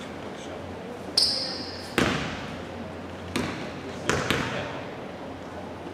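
A short, high whistle blast about a second in, then a basketball bouncing four times on a hardwood gym floor, each bounce echoing. These are the free-throw shooter's dribbles before the shot.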